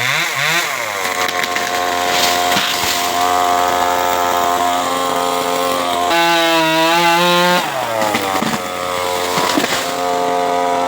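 Chainsaw running at a steady pitch, with a higher, stronger tone for about a second and a half a little past the middle before it settles back.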